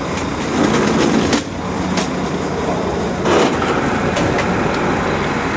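Fire truck's engine running steadily, with sharp clicks and knocks from the rear equipment locker and its roller shutter being handled. There is a short rattling rush a little over three seconds in.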